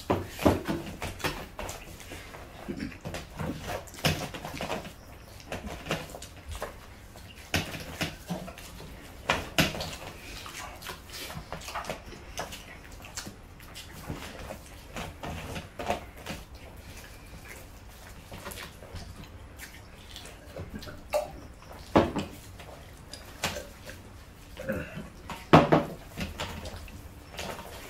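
Eating by hand: wet smacking and chewing, with fingers scooping and squashing curry-soaked rice and tapping against metal platters, in irregular short clicks and smacks. Two sharper knocks come about 22 and 25 seconds in.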